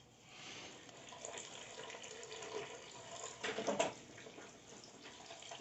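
Water running from a kitchen tap into a container as it fills, with a brief louder spell about three and a half seconds in.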